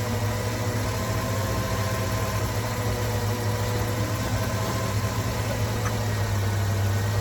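2004 Jeep Grand Cherokee engine idling steadily.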